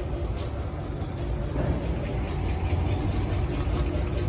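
Belt-driven electric air compressor running steadily, a low hum with a fast, regular ticking from its pump, growing louder about a second and a half in. It is running to supply air for inflating tyres.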